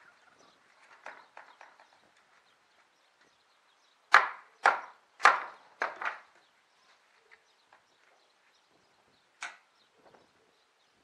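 Sharp knocks on old wooden roof planks: a few faint taps, then four loud strikes within about two seconds, and one more a few seconds later.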